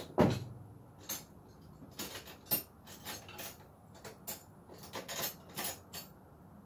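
Scattered, irregular metallic clanks and clicks of metal objects being handled. The loudest clank comes right at the start and rings briefly.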